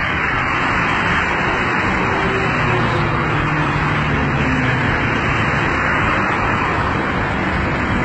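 Steady road traffic noise: a continuous hiss and rumble, with no distinct events.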